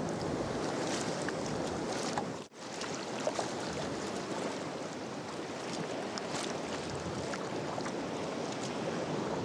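Rough sea sloshing and breaking around sea kayaks, with wind buffeting the microphone. The sound drops out briefly about two and a half seconds in.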